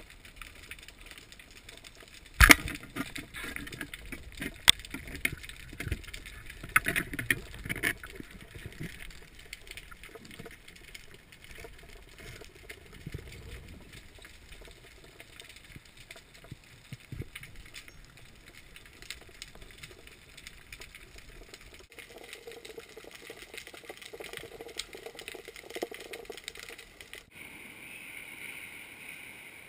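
Underwater sound heard through a diving camera's housing: a steady hiss with scattered sharp clicks and knocks, the loudest about two and a half seconds in. Near the end the sound cuts to open air at the shoreline, with wind and sea.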